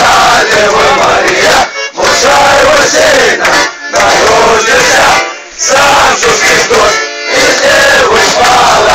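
A group of young men chanting a verse loudly in unison, phrase by phrase, with short breaks for breath between phrases.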